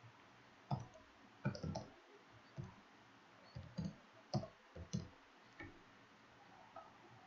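Computer keyboard keys clicking as a word is typed: about a dozen separate, irregularly spaced keystrokes over about five seconds.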